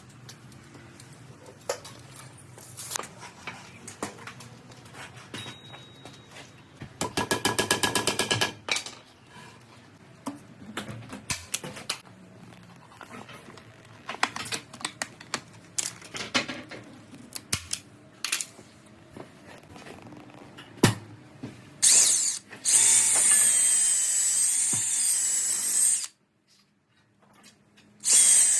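Power drill running in short bursts, its high whine wavering as the speed changes, with a rapid rattle about a third of the way in. Knocks and taps of wood being handled sound throughout.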